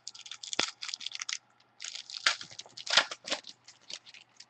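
Football trading cards being handled and flipped through, giving quick crisp rustling and crackling in short clusters.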